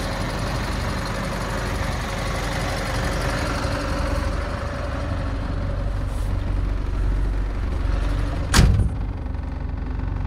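Renault Midlum truck's diesel engine idling steadily, with a cab door shutting in a single loud thump about eight and a half seconds in, after which the outside noise is muffled.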